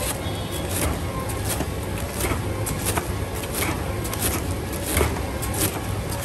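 Steady low rumble of a moving vehicle, with frequent light clicks and rattles.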